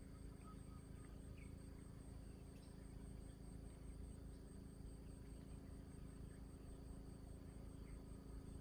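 Near silence: faint steady high-pitched insect chirring, with a low steady hum underneath.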